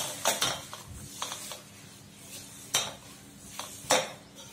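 Hand mixing and kneading crumbly flour dough in a stainless steel bowl: scattered scrapes and knocks of the hand and dough against the steel, the sharpest about three seconds and four seconds in.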